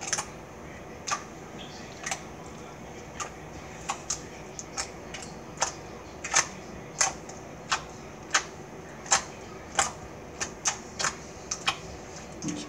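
Slime being pressed and kneaded by hand on a countertop, giving irregular sharp little clicks and pops, about two a second, coming closer together toward the end.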